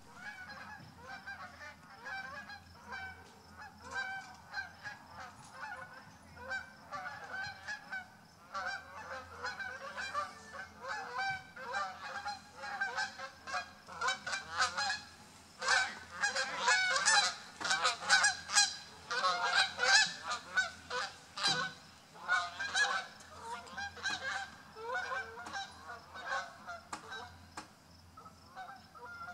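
A flock of geese honking as it flies over, many overlapping calls that build to their loudest in the middle and thin out near the end.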